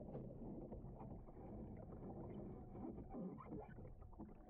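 Muffled underwater sound of pool water swishing and bubbling around a capsized kayaker as she moves her paddle to roll up, heard from underwater.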